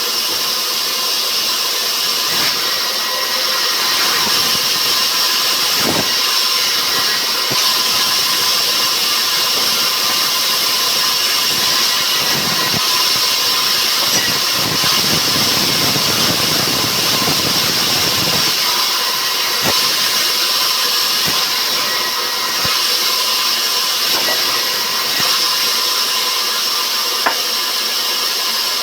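Sawmill machinery running steadily with an even, high-pitched hum. A deeper rumble comes in about twelve seconds in and drops away about eighteen seconds in. A few sharp knocks are heard, the loudest near the end.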